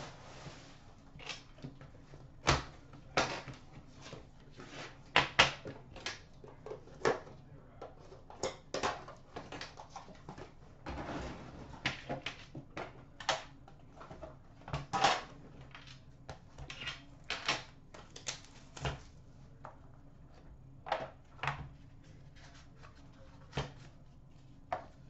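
A boxed set of hockey cards being handled and opened by hand: irregular clicks, taps and knocks of the box against the glass counter, with a short rustle a little before the middle as the packaging is worked open.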